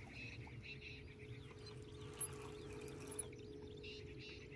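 Faint open-air ambience: small birds chirping over a steady low hum.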